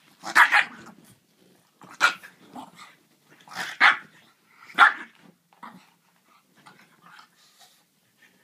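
A French bulldog and a griffon play-fighting, barking and growling. There are four loud outbursts about a second apart in the first five seconds, then softer growls and grunts.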